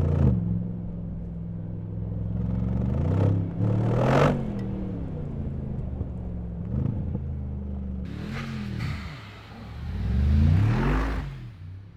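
Mercedes-AMG G63's 4.0-litre twin-turbo V8 revving in repeated rising-and-falling bursts, with a sharp crack about four seconds in. It swells loudest about ten to eleven seconds in, then fades away near the end.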